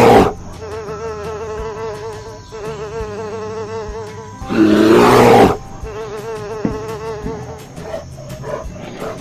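A steady buzzing hum with a quickly wavering pitch. About four and a half seconds in it is broken by a loud, second-long animal roar sound effect, then the hum returns more faintly, with a few light ticks near the end.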